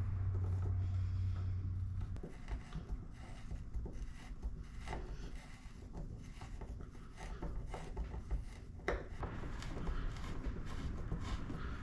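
Self-tapping screws being driven by hand with a screwdriver: irregular creaks, clicks and scraping as the threads cut their way in, slow going. A low hum sounds for the first couple of seconds, then stops.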